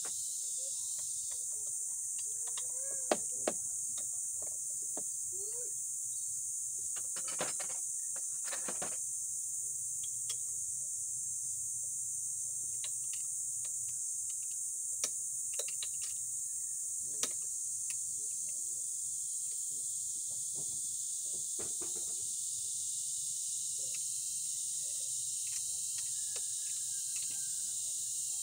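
Steady high-pitched insect buzz, with scattered clicks and knocks from hands and tools working on a motorcycle's front fork and fairing.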